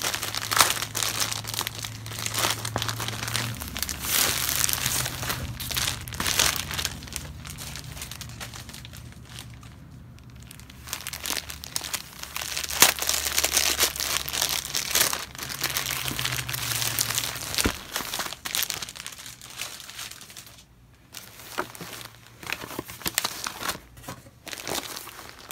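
Thin plastic packaging of a pack of synthetic braiding hair crinkling and crackling as it is torn open and the hair is pulled out and handled, in irregular bursts with short quieter spells.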